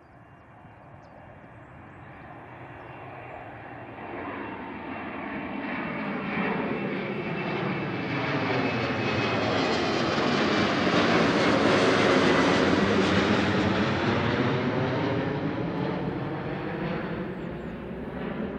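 Twin-engine jet airliner climbing out after takeoff and flying overhead: engine noise builds steadily, is loudest about two-thirds of the way through, then fades as the jet moves away, with a faint high whine over the rumble.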